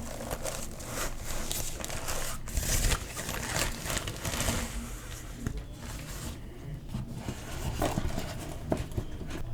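Packaging being unwrapped by hand: irregular crinkling, rustling and scraping of plastic and paper, with a few sharp clicks near the end.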